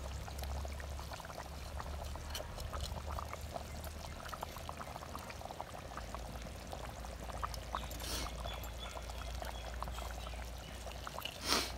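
Watery liquid trickling and gurgling with many small irregular pops and splashes, as water is poured and mixed with coriander powder in clay pots beside boiling curry. Two brief louder splashes come about eight seconds in and near the end.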